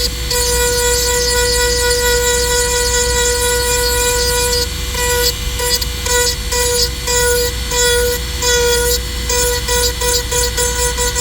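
High-speed rotary tool running with a steady whine, stripping back plastic around a broken bumper tab. From about halfway on the whine dips and stutters repeatedly as the bit bites into the plastic.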